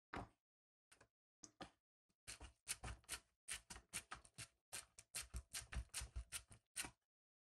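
Plastic hamburger press clicking and tapping as minced meat is pressed into a patty: a few scattered clicks, then a quick irregular run of faint clicks, several a second, that stops shortly before the end.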